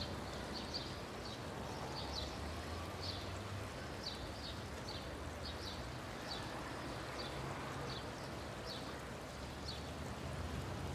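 Street ambience of passing motorbike traffic: a steady hiss with a low engine hum that swells and fades. Faint, short high chirps repeat about once or twice a second throughout.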